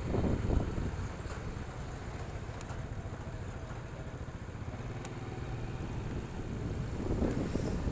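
A motor vehicle's engine running steadily, with louder low rumbling bursts in the first second and again near the end.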